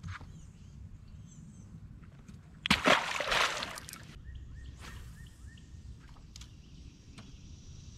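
A bass released back into the river lands with a splash about three seconds in, with small clicks of tackle being handled around it. After that a steady high insect chorus sets in.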